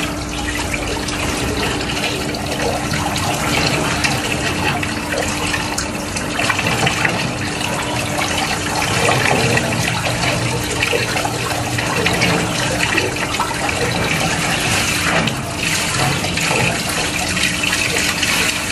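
Handheld shower sprayer running, water spraying steadily over a dog's wet coat and splashing into a concrete wash tub.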